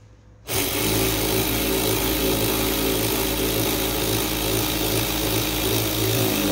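Cordless electric ratchet with a 10mm socket running steadily in forward, driving a fastener tight for about six seconds. It starts about half a second in and winds down with a falling pitch near the end.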